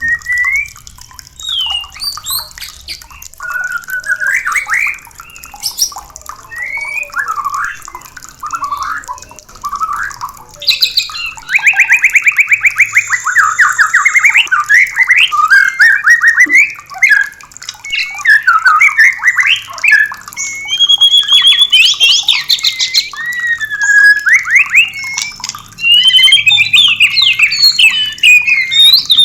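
White-rumped shama singing: a varied run of whistled phrases, sweeps and fast trills, growing louder and denser about a third of the way in, with a rapid even trill soon after.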